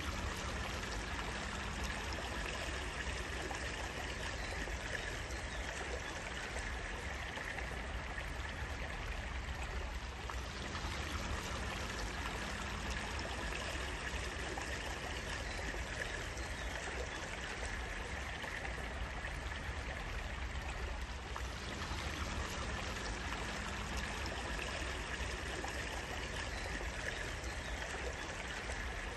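Running water of a stream, a steady flowing rush with no break. A faint low hum comes and goes about every eleven seconds.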